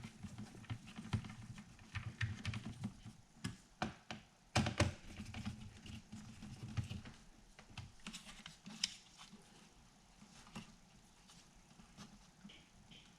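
Irregular small clicks and light taps of a screwdriver and fingers working small screws and plastic parts on the underside of a laptop, busiest in the first half and thinning out after.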